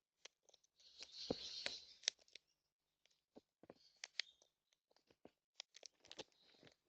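Birds cracking seed at a feeder close to the microphone: irregular sharp clicks and crunches, with a short scratchy rustle about a second in.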